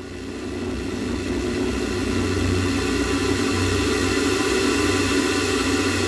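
Space Shuttle left solid rocket booster in the last seconds of its burn, heard through a camera mounted on the booster: a steady, deep rumble of motor noise and airflow that fades up over the first second.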